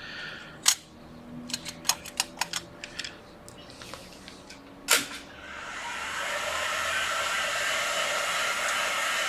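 Several small clicks and taps of laptop parts and screws being handled, one sharper click about five seconds in, then a steady rush of blown air from an air tool that starts up and keeps running.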